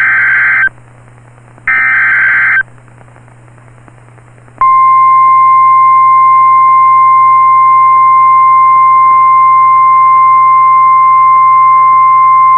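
NOAA Weather Radio EAS alert: the last two of the three SAME header data bursts, short and about a second apart, then the Warning Alarm Tone, one steady tone that starts about four and a half seconds in and holds, over a faint low hum. Together they open a severe thunderstorm warning broadcast.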